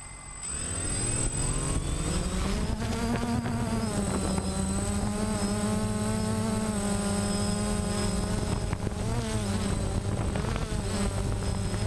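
DJI Phantom quadcopter's brushless motors and propellers spinning up from rest about half a second in as it lifts off, then a steady buzzing whine that shifts up and down in pitch as it climbs and manoeuvres, heard close up from the GoPro mounted on the drone.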